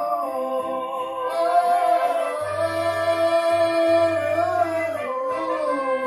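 A young boy singing a Spanish-language ballad into a microphone, drawing out long held notes that bend and slide in pitch.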